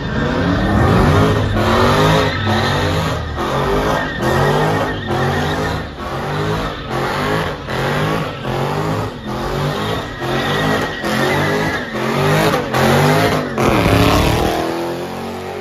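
A car doing donuts, engine revving hard and tires squealing. The sound swells and falls in a steady cycle a little faster than once a second as the car spins round.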